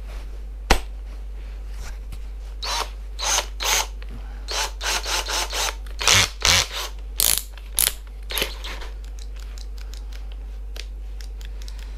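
Elprom 24 V cordless drill-driver being worked by hand. A sharp click comes under a second in, then from about three to nine seconds in a string of short rasping whirs and clicks from its chuck and mechanism.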